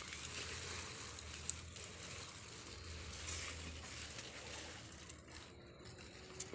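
Faint rustling of bean vine leaves being pushed aside by hand, with one sharp click about one and a half seconds in.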